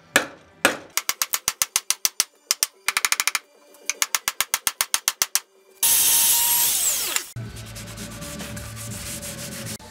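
Rapid hammer taps on a steel wedge being driven into the eye of an axe head to lock the new hickory handle, at about five strikes a second with a quick flurry near the middle. About six seconds in, a loud hissing burst with falling tones, then a low steady hum.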